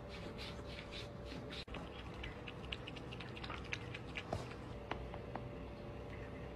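A cat lapping water from a drinking glass: quick wet flicks of the tongue, about four or five a second, with a brief break about a second and a half in. The lapping stops a little past halfway, and a few light clicks follow.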